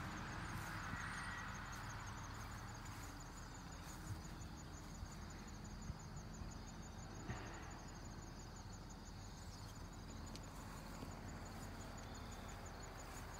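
A cricket chirping faintly in a steady, even rhythm of short high chirps, over a low hum of distant traffic.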